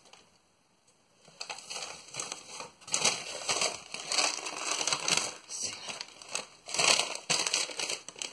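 Brown paper packaging and cardboard rustling and crinkling as hands rummage in a box, in irregular bursts that start about a second in.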